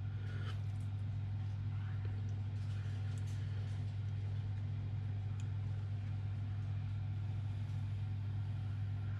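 Steady low hum of a running machine or appliance, unchanging throughout, with a few faint small rustles and clicks from hands handling thawed squid on newspaper and foil.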